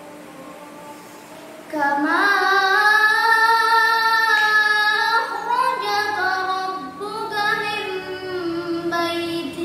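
A young girl reciting the Quran in a melodic chant. After a short pause she starts about two seconds in, with long held notes that bend and ornament.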